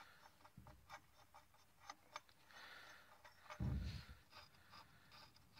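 Near silence broken by faint, irregular clicks of hands and tools at the shift-cable cover bolts on the transmission, with one short, louder rustle and thud about three and a half seconds in.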